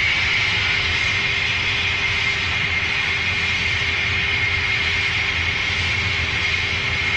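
A steady, loud rushing noise like a jet engine running, with a constant high whine over it and a fainter low tone beneath, unchanging throughout.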